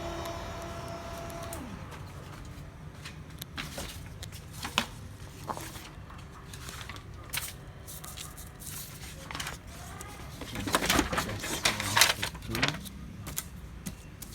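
HP Color LaserJet M182/M183-series printer: a steady motor whine that stops about a second and a half in, then scattered plastic clicks and knocks, with a louder run of clicking and rattling near the end, as the machine is worked on to clear an Er11 toner error.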